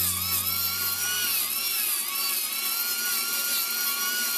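Angle grinder with a disc grinding a carved wooden piece, its motor whine dipping and rising in pitch again and again as the disc bites into the wood and eases off, then holding steadier in the second half.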